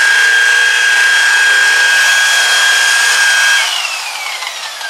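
Electric variable-speed rotary buffer with a wool pad, its motor whining at a steady speed while it buffs compound on a car's paint. About three and a half seconds in the trigger is let go, and the motor winds down with a falling whine.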